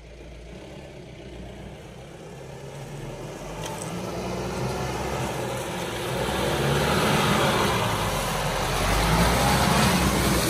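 Mahindra Bolero 4x4 pickup's diesel engine pulling through deep mud, growing steadily louder as the truck approaches and passes close, with its tyres churning and splashing through the mud.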